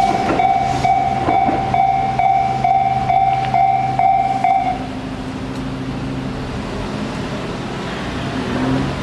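Japanese level crossing warning bell ringing its 'kan-kan' tone about twice a second while a Tobu Noda Line train clatters over the crossing. The bell stops about five seconds in, leaving a steady low motor hum that rises slightly near the end.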